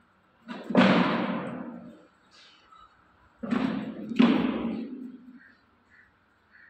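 Tiger snarling at close range, two harsh bursts: one about half a second in and a double one a few seconds later, each fading over about a second.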